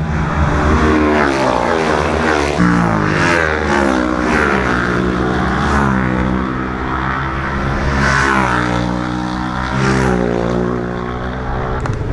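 Racing motorcycle engines at full throttle passing close by. Their pitch climbs and drops back again and again as the riders shift up through the gears.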